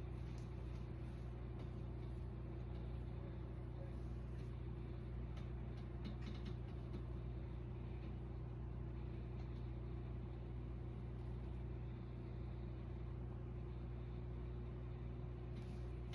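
A steady low hum, unchanging throughout, with a few faint clicks over it.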